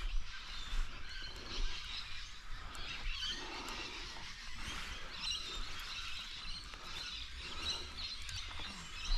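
Small birds chirping and twittering on and off, with a low rumble underneath.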